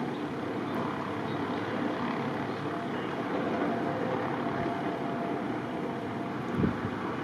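Steady vehicle noise on a snowbound road, with a short low thump about six and a half seconds in.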